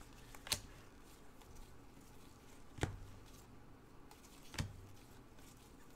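Gloved hands sliding through a stack of Panini Revolution basketball cards, giving faint rustling and three sharp clicks about two seconds apart as the cards are flipped.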